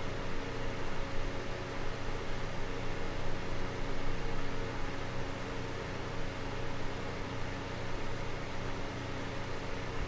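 Small electric desk fan running steadily: an even rush of air with a faint low hum underneath.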